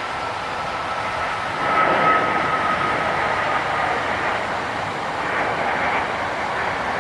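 Jet airliner's engines passing, a steady rushing noise with a high fan whine that sinks slightly in pitch and fades out about three and a half seconds in. The noise swells briefly about two seconds in.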